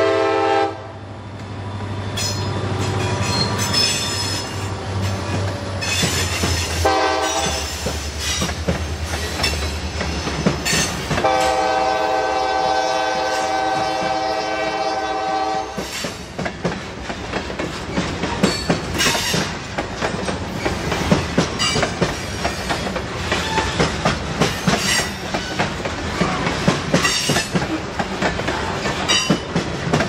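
CSX GP40-2 diesel locomotive passing close by, blowing its multi-note horn: one blast cutting off just after the start, a short toot around 7 s and a long blast from about 11 to 16 s, while its engine drone fades. Then covered hopper cars rolling past with steady clickety-clack of wheels over the rail joints and occasional brief wheel squeals.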